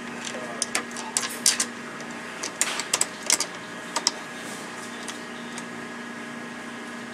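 Sharp small clicks and taps of hardware being handled by hand: a washer and nut going onto a bolt through a plastic side-by-side door panel and its clamp. The clicks stop about four seconds in, leaving a steady low hum.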